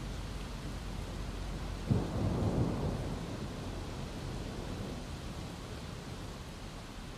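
Steady rain with a thunderclap about two seconds in: a sudden crack followed by a low rumble that dies away, while the whole sound slowly fades.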